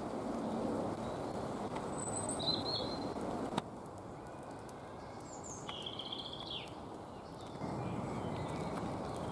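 Small songbirds chirping a few times, with a short trilled call about six seconds in, over the steady rustle and crunch of footsteps on a leaf-strewn dirt forest path that eases off in the middle. A sharp click a little past three seconds.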